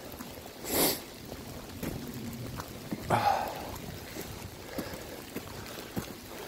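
Walking on a wet dirt road in rain: faint footsteps about every half second under a steady hiss of rain, with two heavy breaths close to the microphone, about a second in and about three seconds in.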